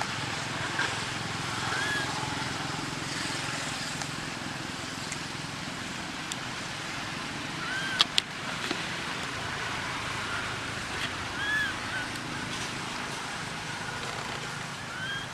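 Steady outdoor background noise with four short, high chirps that rise and fall, spaced a few seconds apart. About eight seconds in come two sharp clicks in quick succession.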